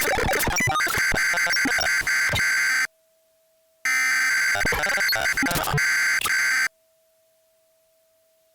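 Emergency Alert System SAME header data bursts from a glitching ENDEC. Two loud bursts of about three seconds each are broken up by clicks and crackle, with about a second of near silence between them in which only a faint steady low tone remains. The second burst cuts off a little over halfway through.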